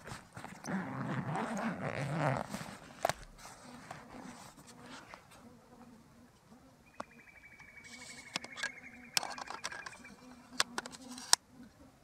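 Rustling of a camera backpack and a camera with a telephoto lens being handled and lifted out, with several sharp clicks near the end. An insect buzzes low near the microphone through the middle, and a high, even trill sounds for about three seconds midway.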